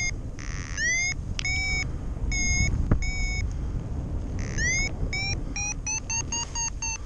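Paragliding variometer beeping for climb: short electronic beeps, a few a second, that come faster and rise in pitch in the second half, the sign of stronger lift. Wind rushes over the microphone underneath.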